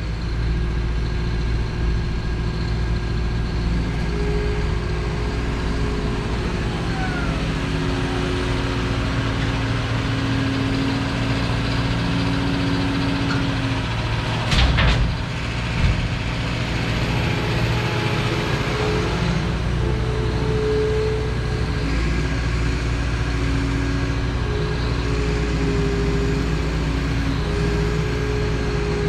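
Liebherr R926 crawler excavator working steadily, its engine and hydraulics running with whines that shift in pitch as the boom and bucket move. Halfway through comes a loud clatter as a bucketload of forest topsoil drops into the tractor's dump trailer.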